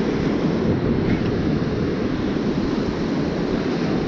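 Surf washing up the sand, with wind buffeting the microphone as a steady low rumble.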